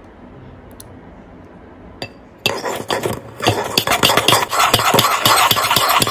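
Metal fork whisking salad dressing in a ceramic bowl: rapid scraping strokes of the tines against the bowl, starting about two and a half seconds in, with a short break partway through.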